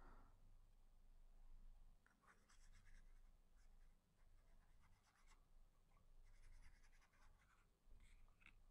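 Near silence, with a few faint scratchy rustles and taps from a paintbrush and gouache jars being handled and brown paint being worked on a card palette.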